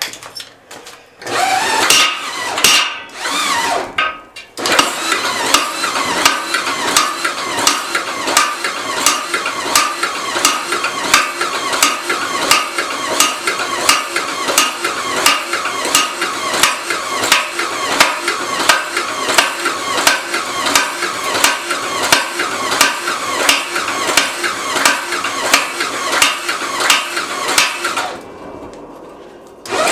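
A homemade power hammer, driven by an electric drill through a 20-to-1 worm gear, starts up with a few uneven blows. It then settles into a steady rhythm of metal-on-metal strikes, a few each second, over the whine of the drill motor. Near the end it stops briefly and then starts again.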